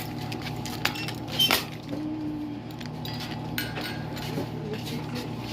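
Light clinks and jangles, like keys or glass, as scattered sharp clicks over a steady low hum, loudest about a second and a half in.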